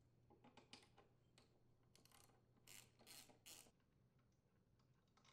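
Near silence, with a few faint clicks and brief rubbing sounds of small engine parts being handled as the ignition coil is taken off, the loudest a short cluster about three seconds in.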